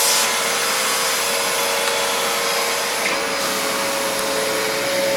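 Dyson Multi Floor vacuum cleaner running steadily at full speed, a steady whine over rushing air.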